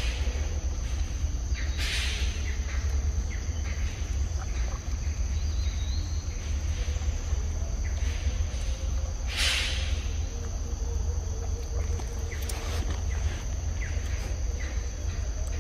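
Steady high-pitched insect drone over a low, steady rumble, with scattered small clicks and two short hissy bursts of noise about two and nine and a half seconds in.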